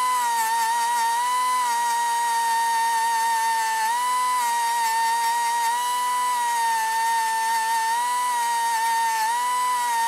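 Small grinder running at a high, steady whine as it grinds a Lock-N-Stitch repair pin down flush on a cracked cast-iron engine block. Its pitch sags a little each time it bears into the metal.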